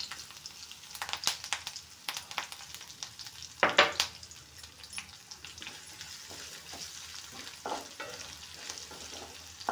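Crushed garlic and curry leaves sizzling in hot oil with fennel and cumin seeds in a metal kadai, a tempering (oggarane), with scattered small clicks and crackles. A louder knock about four seconds in, and stirring in the pan near the end.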